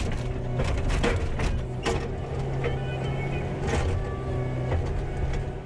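Cat 312CL excavator's diesel engine running steadily under load, with repeated knocks and clanks of the bucket and concrete block as the demolition rubble is broken up and moved.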